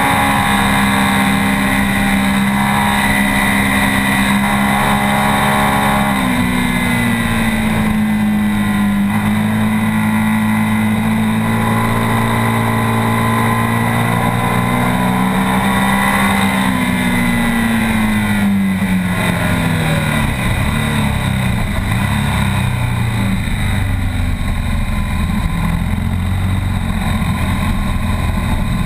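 A BMW R 1200 S's air/oil-cooled boxer twin engine running hard at track speed, heard from on board with wind rush. The engine note changes about six seconds in, falls in pitch for a few seconds past the middle as the bike slows, then runs lower and rougher near the end.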